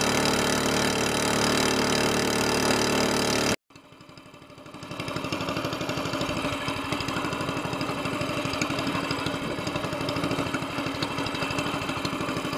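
Single-cylinder Honda-clone longtail mud motor with an SPS exhaust header, running at full throttle. About three and a half seconds in, the sound cuts out suddenly, then the same engine fades back in, running slower and a little quieter with an even firing beat.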